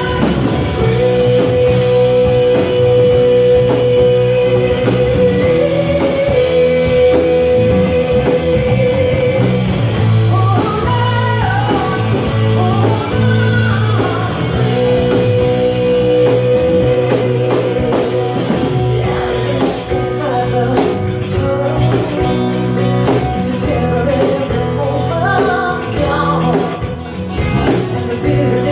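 Music: a band's rock/blues-style song with guitar, playing a stretch with long held melody notes and no sung words.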